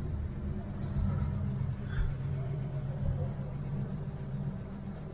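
Chevrolet Opala's engine running steadily at low speed in slow traffic, heard from inside the cabin as a low, even hum.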